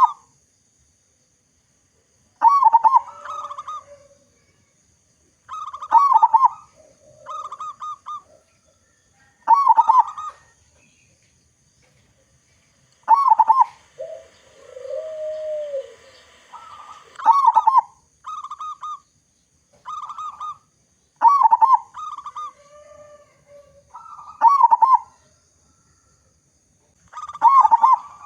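Local zebra dove (perkutut) singing with a big voice: a short phrase of quick, stuttering coos every three to four seconds. One longer, lower call sounds a little past the middle.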